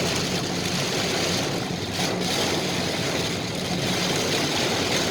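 A vehicle running steadily: a low engine hum under an even, continuous hiss.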